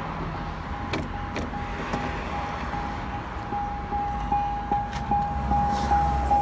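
A steady electronic beeping tone repeating about two and a half times a second, growing louder in the second half, with a few sharp clicks about a second in.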